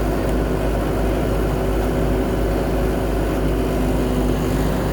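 Heavy diesel engine of asphalt paving machinery running steadily at constant speed, a continuous low hum with a held engine tone.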